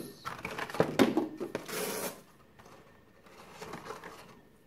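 Cardboard toy box with a clear plastic insert being handled and unpacked: crinkles, scrapes and a short rustle burst in the first two seconds, then only a faint rustle.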